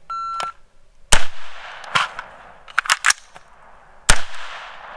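A short steady electronic beep, then AR-15 rifle shots, about five in an uneven string over some three seconds. The loudest shots come about a second in and near the end.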